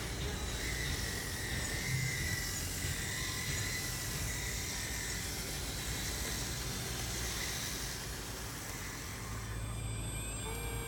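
A radio-controlled excavator's small electric motors whine faintly as it tracks and works in sand, over a steady background hiss. A few thin steady tones come in near the end.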